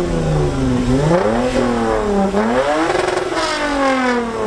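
A car engine at a car meet being revved twice, its pitch climbing to a peak and falling back each time. The exhaust is loud and throaty.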